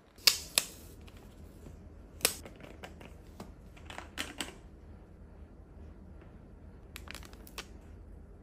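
Hard plastic bottles and caps handled on a tabletop: sharp clicks and taps, the loudest two just after the start and one about two seconds in, with smaller clicks after that and a quick cluster about seven seconds in.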